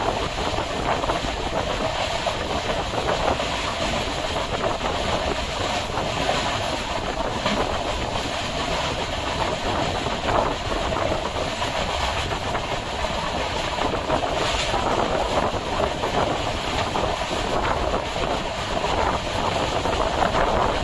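Passenger train running at speed, heard from on board the coach: a steady rumble and rush with the wheels clicking over rail joints now and then.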